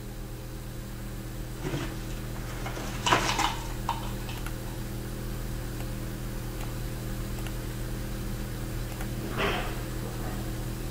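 A steady low electrical hum, with a sharp knock about three seconds in and a couple of softer brief sounds.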